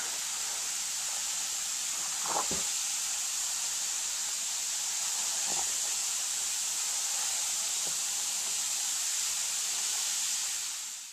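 Strawberry wine must fizzing in very active fermentation: a steady fine hiss of many tiny bubbles popping in the foam.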